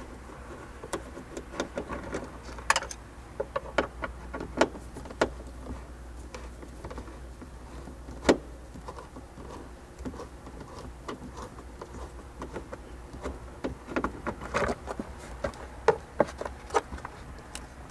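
Scattered light clicks and taps of a Phillips screwdriver working out the screws of a car's plastic sun visor mount, with a denser run of clicks and plastic knocks near the end as the visor comes free.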